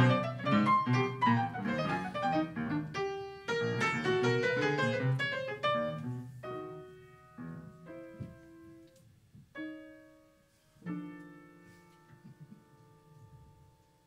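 Upright piano playing freely improvised music: a dense flurry of fast, loud notes for about six seconds, then sparse, quieter single notes and chords left to ring out.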